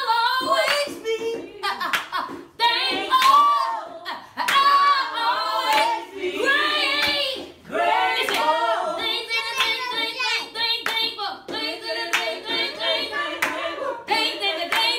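Gospel singing with hand clapping, the voice sliding through long held notes while sharp claps land at irregular moments.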